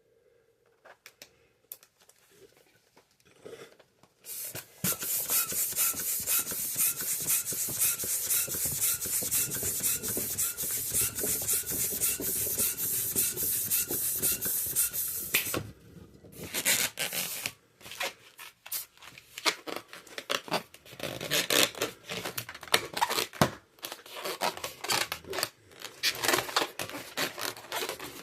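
Latex modelling balloon inflated with a pump: a steady rush of air for about ten seconds, starting a few seconds in. Then rubber squeaking and rubbing, with many quick small clicks, as the balloon is handled and twisted.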